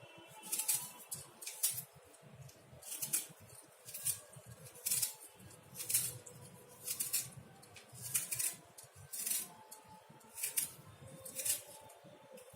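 Hand peeler scraping the skin off an apple in short strokes, about one a second.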